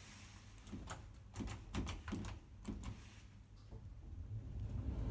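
Lift car: a quick run of mechanical clicks and clunks, then a low rumble that swells near the end as the car starts to move.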